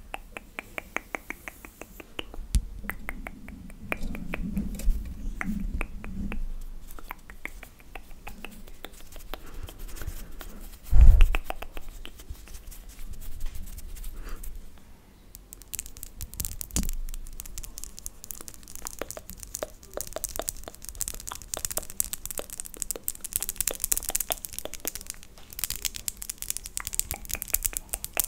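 Long, sharp fingernails clicking and tapping close to a microphone in quick runs, with one dull thump partway through. In the second half they turn to denser, crackly scratching and rustling.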